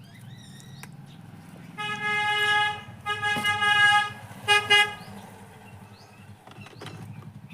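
A vehicle horn honking three times, one steady pitch each time: two toots of about a second each, then a short one.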